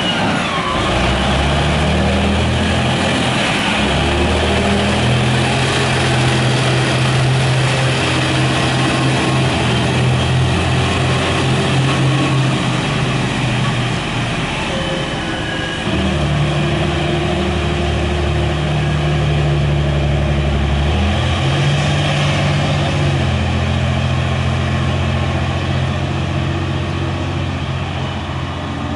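Diesel engine of a giant mining dump truck converted for passenger rides, pulling away and driving off under load. Its deep engine note steps down and climbs again several times as it changes gear, and eases off a little near the end as it draws away.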